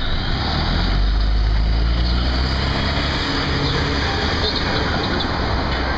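City street traffic: a motor vehicle's low engine rumble close by, swelling about half a second in and easing after a few seconds, over steady traffic noise.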